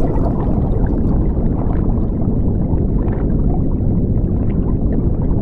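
Underwater ambience: a steady low rumble of water with faint bubbling.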